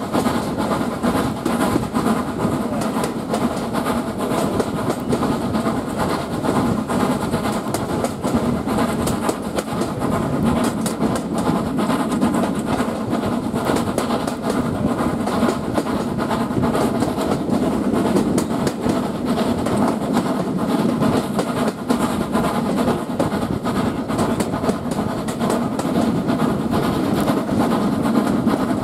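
Steam train running at speed, heard from an open carriage window: a steady rumble and clatter of the coaches' wheels on the track, with the LSWR S15 class 4-6-0 steam locomotive No 506 working ahead.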